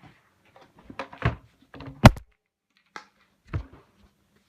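Several plastic knocks and clicks from a Kärcher MV2 wet and dry vacuum's hose and attachments being handled and fitted back on, the sharpest crack about two seconds in.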